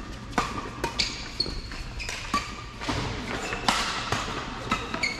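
Badminton rackets striking a shuttlecock in a fast doubles rally: a string of sharp cracks, some close together, with brief squeaks of court shoes on the floor mat between hits.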